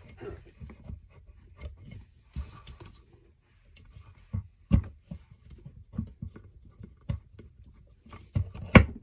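Irregular metal knocks and taps as a small engine's crankcase cover is pried and rocked on its shaft, stuck because the seal around the crankshaft is rusted; the loudest knock comes near the end.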